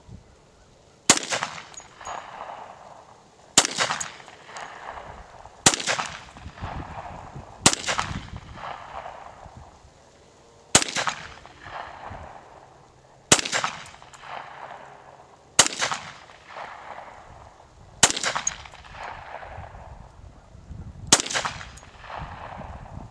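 Hi-Point 4595 TS .45 ACP pistol-caliber carbine fired nine times in slow, deliberate single shots about two to three seconds apart, each shot trailing a rolling echo.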